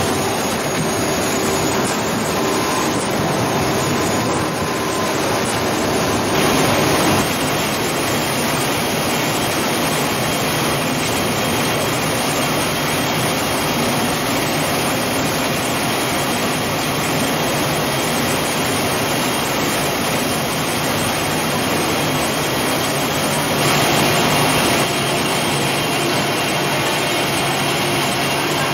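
Orange-processing line machinery running, a steady mechanical rushing hum with faint tones in it. It grows slightly louder for a moment about six seconds in and again near the end.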